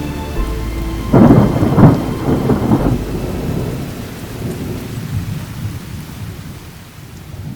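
Thunderstorm sound effect: steady rain with a loud clap of thunder about a second in that rumbles on for a couple of seconds, then the storm slowly fades.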